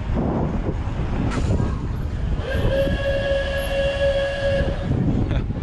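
A horn sounds one steady note for about two seconds, over wind buffeting the microphone of a moving bike.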